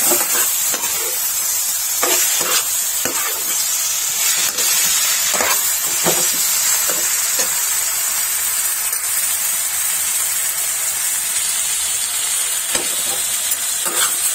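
Masala-coated paneer, onion and capsicum sizzling in oil in a kadhai, with a steady hiss, while a perforated steel spatula stirs and scrapes against the pan in irregular strokes.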